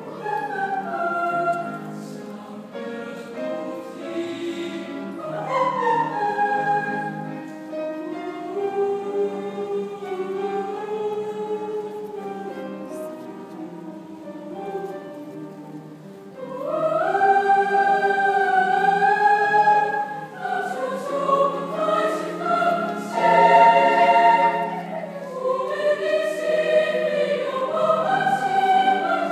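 School choir singing in many voices with grand piano accompaniment. The first half is softer, and about halfway through the choir comes in much louder and fuller.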